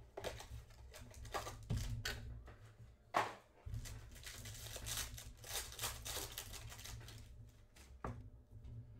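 Trading-card box and pack being torn open and handled: scattered tearing and crinkling of packaging. The loudest sound, a sudden one, comes a little after three seconds in, followed by a denser stretch of crinkling.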